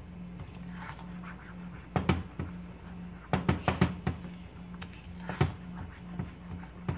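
Silicone spatula stirring a thick chocolate sauce in a nonstick pan, with short knocks and scrapes against the pan, a quick run of them in the middle and single ones before and after.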